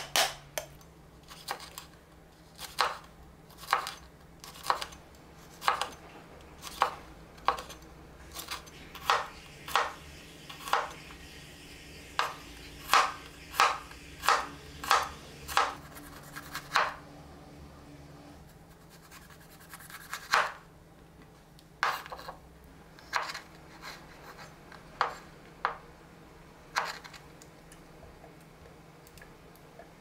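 Kitchen knife chopping on a wooden cutting board, slicing through lemon, garlic and green chili. Single sharp knocks come about once a second, quicker in the middle. After a pause of a few seconds, a few more strokes follow.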